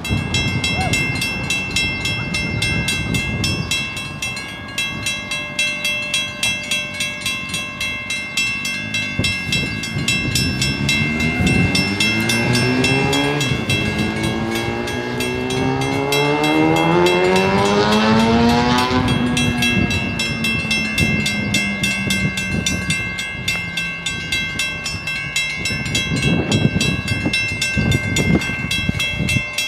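Railway level-crossing warning bell ringing with rapid, regular strikes. From about ten seconds in, an engine revs up, rising in pitch for several seconds, then eases off.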